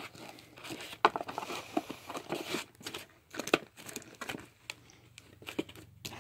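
Cardboard box flaps being slid under and tucked shut by hand: irregular scraping, rustling and light taps of cardboard.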